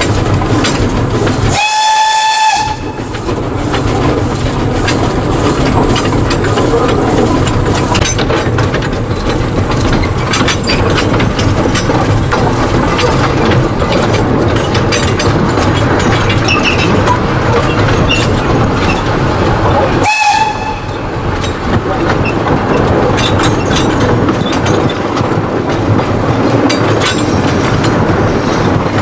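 Small narrow-gauge steam locomotive under way, heard from just behind its cab: steady running noise with wheels clattering over the rails. Its steam whistle is blown once for about a second near the start, and gives a short toot about twenty seconds in.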